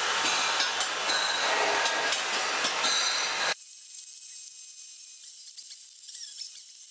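Steel pipe being handled and set onto pipe stands: clinks of metal over a steady hiss. About three and a half seconds in the sound cuts abruptly to a quieter, thinner hiss with a few faint squeaks.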